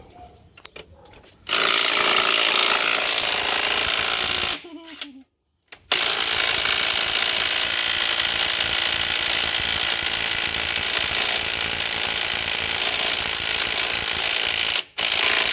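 Impact wrench hammering on the harmonic balancer bolt of a Toyota 2JZ engine, in three runs: a short one of about three seconds, a long one of about nine seconds, and a brief one at the end. The bolt does not come loose; the gun isn't strong enough for it.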